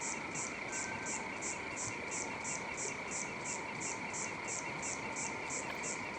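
A steady chorus of calling animals: a high chirp repeats evenly about three times a second over a continuous ringing trill.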